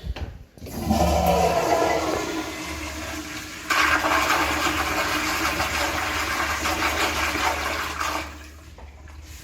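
Old Standard-brand toilet flushing: a rush of water starts about half a second in with a falling whine, grows suddenly louder about four seconds in, and dies down near the end.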